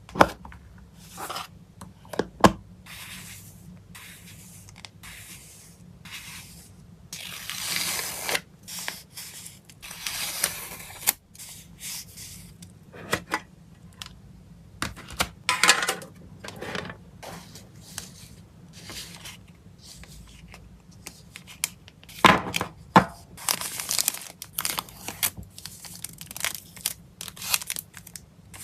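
Photocard packing: plastic sleeves and packaging being handled, with irregular crinkling, tearing and scraping and a few sharp clicks.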